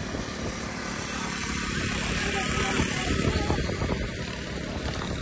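Small motorcycle engines running as several riders travel along the road, under a steady rushing noise that grows a little louder toward the middle.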